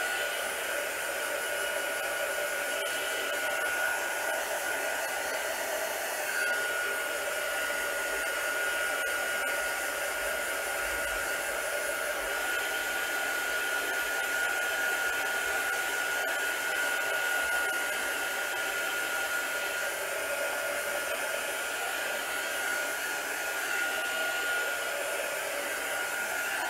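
Small handheld craft dryer running steadily, a blowing rush with a thin high whine, drying wet gesso on a paper journal page.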